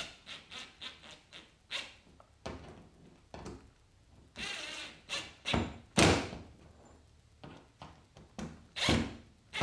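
Irregular knocks, taps and clatter against a hollow plastic kayak hull while a pad eye is being fitted. There is a short burst of hissing noise about four and a half seconds in, and the loudest knocks come about six and nine seconds in.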